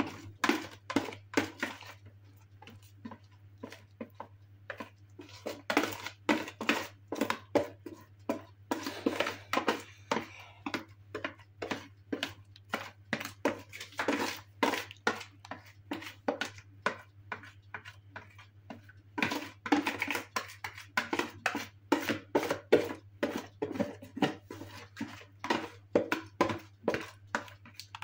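A utensil clinking, knocking and scraping against a mixing bowl as cake batter is poured onto a baking tray: an irregular run of quick clicks and knocks, with a steady low hum underneath.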